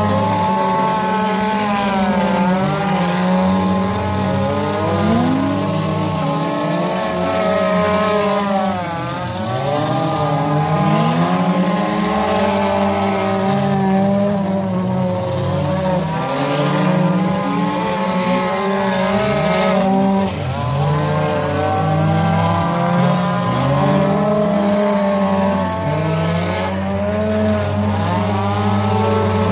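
Several figure-8 race cars' engines running hard at once, their pitches rising and falling over and over as the cars accelerate and back off through the turns.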